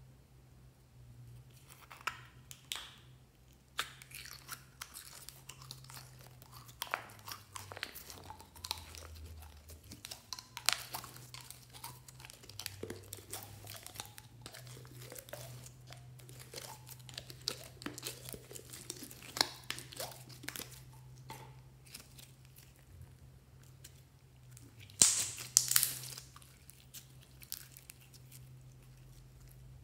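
Slime being squeezed, stretched and poked by hand: an irregular run of small sticky clicks and crackles, with the loudest burst of crackling near the end, over a faint low hum.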